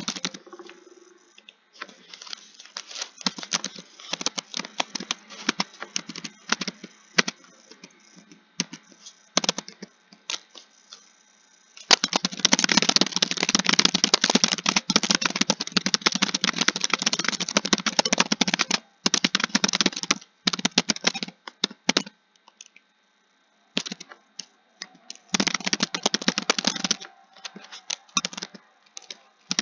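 Typing on a computer keyboard: quick clusters of keystrokes broken by short pauses, with a long, fast, louder run of typing through the middle and a brief stop a little after that.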